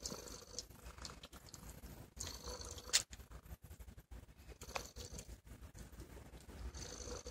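Sphynx mother cat purring low and steady while her newborn kittens suckle, with soft wet clicking and smacking from the nursing. One sharper click stands out about three seconds in.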